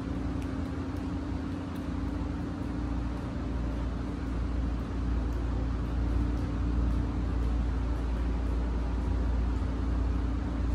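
Steady mechanical hum of the hall's cooling and ventilation machinery, one constant low tone over a deep rumble and a hiss.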